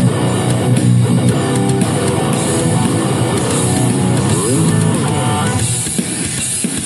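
Ibanez RG seven-string electric guitar playing a metal riff over a drum backing track with cymbals. About four seconds in, a note slides up and back down.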